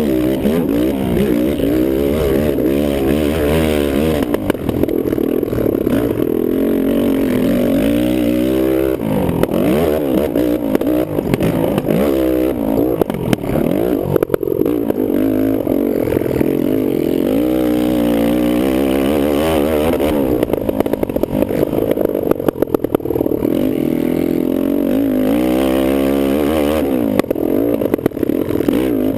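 Kawasaki KFX450R quad's single-cylinder four-stroke engine running hard, its pitch repeatedly rising and falling as the rider accelerates, shifts and lets off the throttle.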